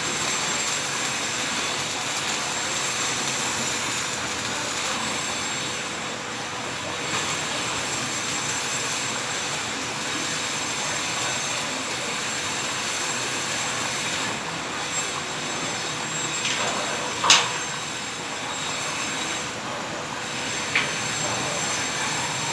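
Steady hissing crackle of arc welding, broken by two short sharp knocks, the first about seventeen seconds in and the second a few seconds later.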